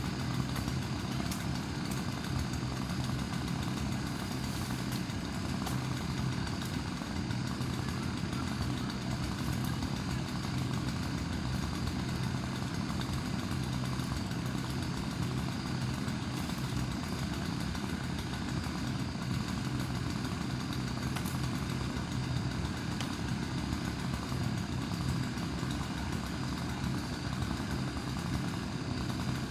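An engine running steadily at an even speed, a constant low drone with no rises or falls.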